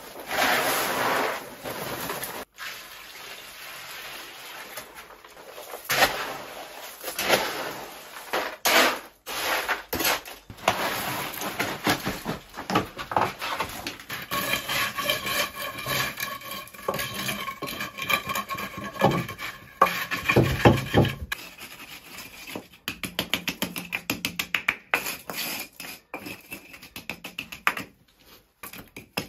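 Hand concrete work: dry concrete mix tipped from its bag into a plastic mixing tub, then wet concrete scraped, patted and smoothed into place with a trowel. A steady pitched hum runs for several seconds in the middle, and there is a run of quick taps near the end.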